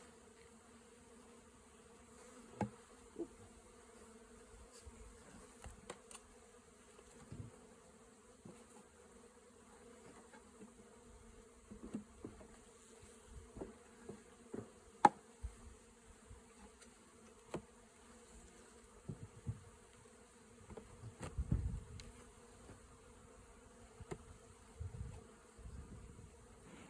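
Honeybees buzzing steadily around an opened hive, a continuous hum, with scattered clicks and knocks as the hive's frames and boxes are handled, the sharpest about halfway through, and a short low rumble a few seconds later.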